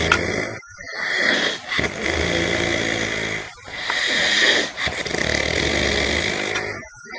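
A person snoring in long, noisy breaths, one every three seconds or so, with a short pause between them. A low rattle comes in during parts of each breath.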